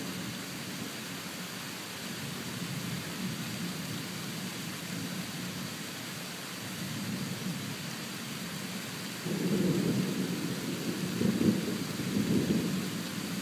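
Steady hiss of rain, then thunder rumbling in about nine seconds in, rolling in several low swells for about four seconds.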